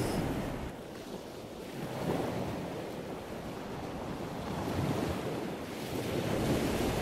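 Ocean surf breaking and washing onto a beach, swelling and easing over a few seconds.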